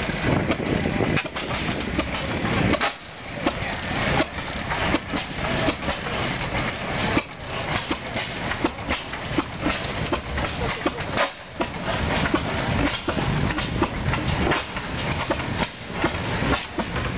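Antique stationary gas engines running, with a steady mechanical clatter made up of many short knocks and chuffs.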